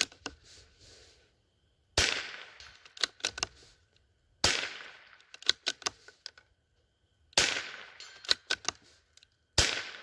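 Four shots from a Howa M1100 semi-automatic .22 LR rifle, two to three seconds apart. Each crack is followed by a quick run of sharp clicks.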